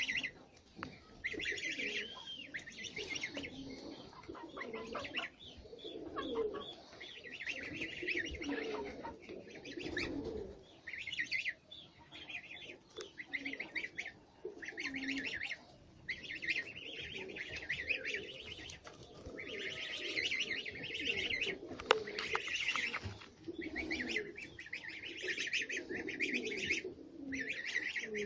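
Pigeons cooing low, with small birds chirping in quick bursts of a second or two over them.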